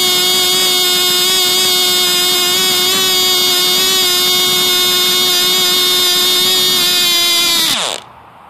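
Cox Tee Dee .010 two-stroke glow model engine running flat out with a steady high-pitched buzz as it leans out near the end of its run. About eight seconds in it quits, the pitch dropping quickly as it spins down to a stop.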